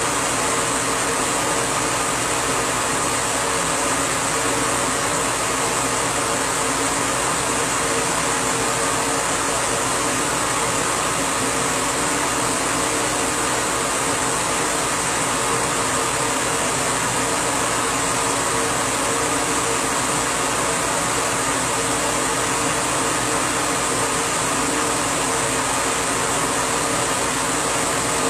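Laser engraving machine running while it engraves a photo onto a plaque: a steady, unchanging fan-like whir.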